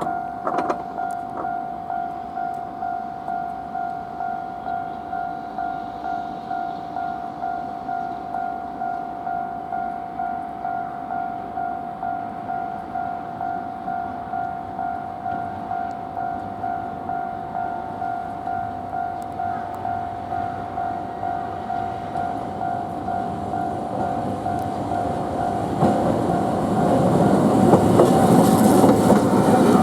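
Japanese level-crossing warning bell ringing in a steady repeating rhythm, about one and a half strikes a second. About four seconds before the end a Toden Arakawa Line tram comes through the crossing, its running noise rising loud over the bell.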